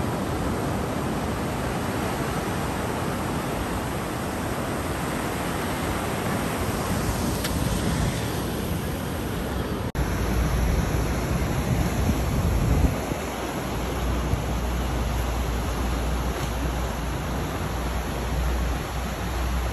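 Ocean surf washing steadily against a rocky shore, with wind rumbling on the microphone. There is an abrupt cut about halfway through, after which the low wind rumble is heavier.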